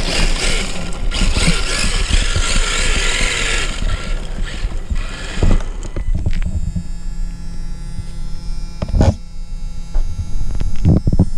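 RC drift car running on asphalt, its motor whine and tyre noise filling the first half. About six seconds in it gives way to a steady electric buzz, broken by several sharp knocks.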